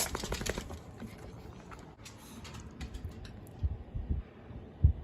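Yorkshire terrier lapping water from a bowl: quick wet clicks of the tongue, strongest in the first second and again a couple of seconds in. A few low thuds follow near the end, the loudest just before the end.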